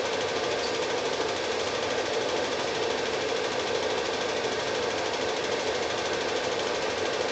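Cine film projector running: a steady, rapid mechanical clatter that does not change.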